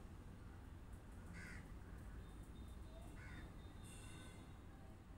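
Quiet background with two short, faint animal calls, about a second and a half and three seconds in.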